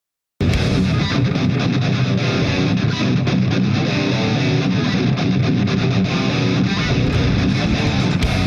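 Prog metal band playing live with heavily distorted electric guitar, heard through a direct soundboard mix. It cuts in suddenly at full level about half a second in, after silence.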